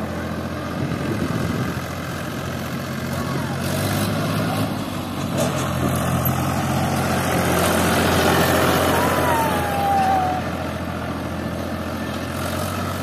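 Farm tractor's diesel engine running steadily as the tractor is driven around, growing louder for a few seconds in the middle as it passes close.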